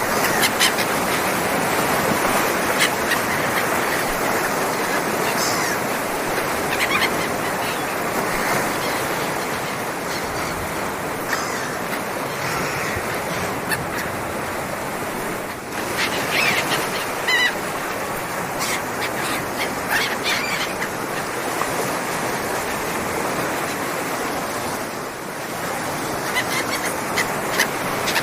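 Sea waves washing steadily, with short bird calls breaking in now and then, most of them about two-thirds of the way through.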